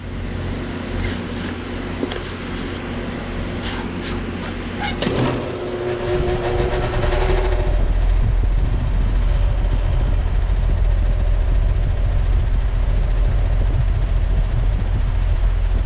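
2019 Goodman GSZ14 2-ton heat pump starting up. A sharp click comes about five seconds in, then the scroll compressor and outdoor fan come up to speed over a couple of seconds and settle into a steady low hum.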